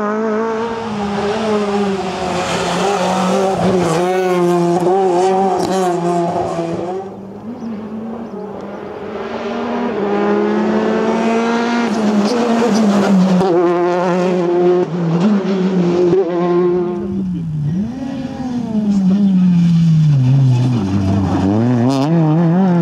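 Rally cars driven flat out on a tarmac special stage, engines at high revs, the pitch climbing under acceleration and dropping at each gear change or lift for a corner. Several passes follow one another.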